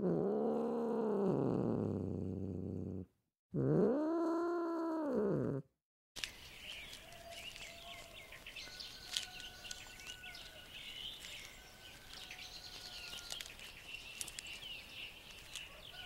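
Clouded leopard giving two long calls, each rising and then falling in pitch, the second following a short pause. About six seconds in they cut off and give way to quieter bird chirps and whistles.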